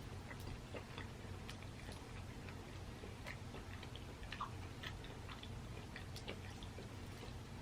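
Faint, scattered clicks and crackles of boiled crawfish shells being cracked and peeled while eating, over a low steady hum.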